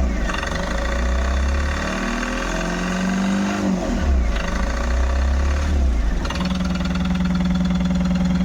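Tata Ace Gold BS6 diesel engine running and being revved, its pitch rising and falling back several times, then settling into a steady idle about six seconds in. It starts and revs cleanly now that the crank position sensor wiring has been repaired.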